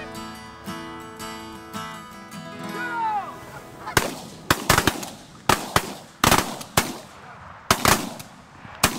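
Canada geese honking as a flock comes in, then from about four seconds in a rapid volley of about a dozen shotgun blasts from several hunters firing at once.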